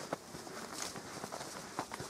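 Footsteps of a person walking along a grassy woodland track: a few soft, irregular footfalls with light crunches.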